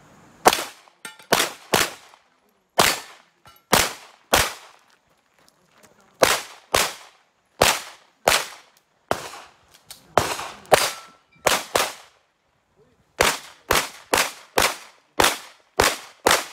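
Handgun shots fired in a practical-shooting stage: about twenty-two shots, mostly in quick pairs and short strings, with gaps of up to about a second and a half between groups.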